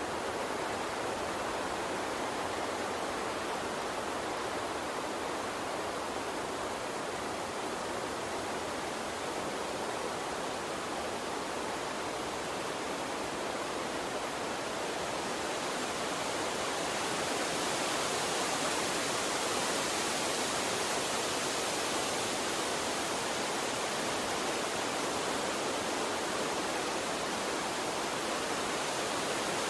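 Gentle water stream running with a steady, even rush. From about halfway through, a higher hiss comes up and the sound grows slightly louder.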